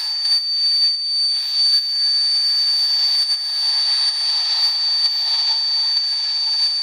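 GM 3800 Series II V6 running with a really loud, steady high-pitched whistle over a hiss. The whistle is a vacuum leak at the upper intake manifold gasket, most present when the engine is cold.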